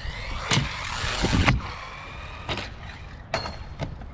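Electric motor of an Arrma Typhon Grom RC buggy whining and rising in pitch as it speeds up, with several sharp knocks as the buggy hits and lands on hard ground, the loudest two in the first second and a half.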